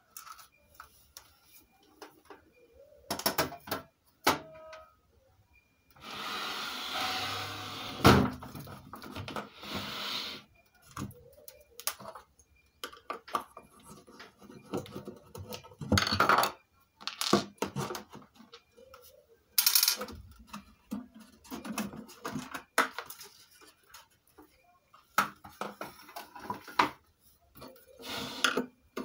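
Screwdriver and handling noise on a wooden speaker cabinet: irregular clicks, knocks and scrapes as the back-panel screws come out and the panel is pulled off. There is a few seconds of scraping with one sharp knock about eight seconds in.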